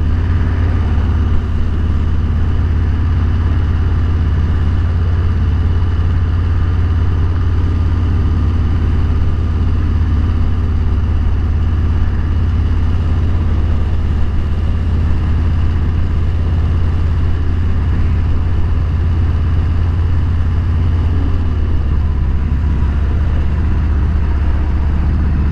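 Motorcycle riding at a steady speed, its engine and road noise making a loud, constant low rumble with no change in pace.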